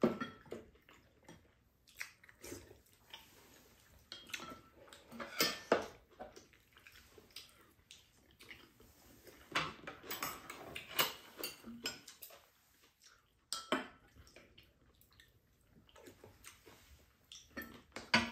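Spoons clinking and scraping against ceramic bowls and a frying pan during a meal, in scattered, irregular clicks and scrapes.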